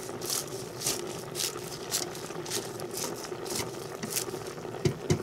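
Raw collard green leaves rustling and crunching against a stainless steel pot as a silicone spatula presses them down, in strokes about twice a second, over a faint steady hum. A couple of sharp knocks come near the end.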